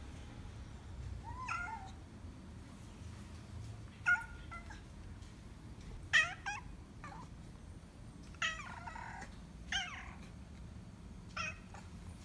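Domestic cat meowing repeatedly: about seven short calls, a second or two apart.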